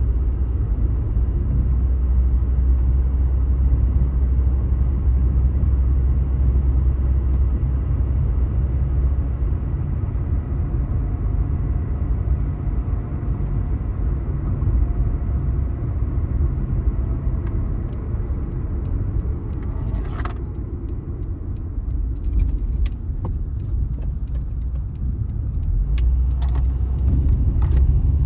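Road and engine noise inside a moving car's cabin: a steady low rumble that eases off about a third of the way in and swells again near the end. Scattered light clicks and rattles come through in the second half.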